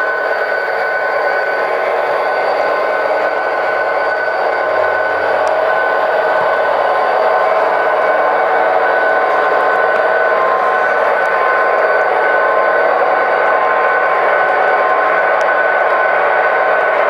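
Model diesel locomotives running with SoundTraxx Tsunami sound decoders: steady diesel engine sound through their small onboard speakers, with a lasting hum of several held tones, mixed with the rolling of a long train of model hopper cars.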